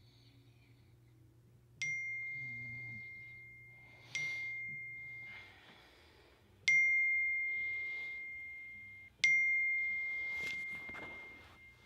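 A bright bell-like chime struck four times, about every two and a half seconds, each tone ringing out and fading before the next.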